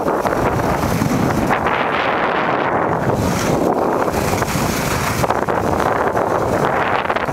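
Wind buffeting the microphone of a camera carried by a fast-moving skier, a loud steady rush, with bursts of higher hiss from skis running over hard snow.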